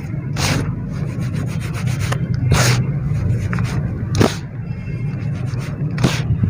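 Soft dry dirt being crumbled and rubbed, a continuous gritty rubbing broken by four sharp crumbling crunches.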